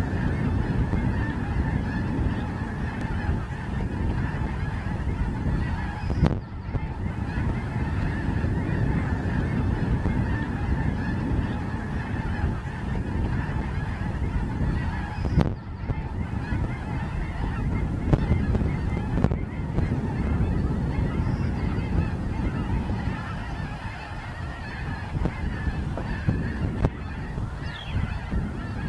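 A large flock of geese honking, many calls overlapping into a continuous chorus.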